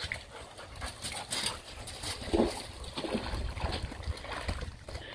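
Dogs playing in a garden pond, with water splashing as one wades through it and a few short dog vocalizations about halfway through.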